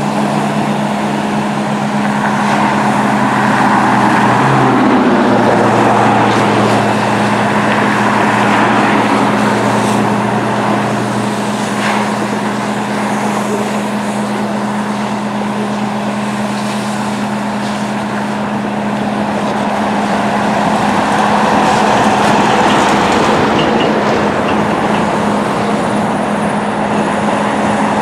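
Fire engine running at the scene, a loud steady drone with a rushing hiss over it. Some lower engine tones drop out partway through.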